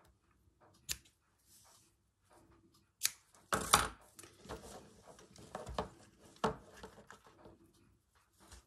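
A single scissor snip cutting satin ribbon about a second in, then rustling of ribbons and the cotton-reel bunting being handled on the mat, loudest just before the middle, with a few light knocks.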